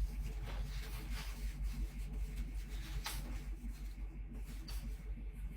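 Quiet room tone with a steady low hum and a faint click about three seconds in.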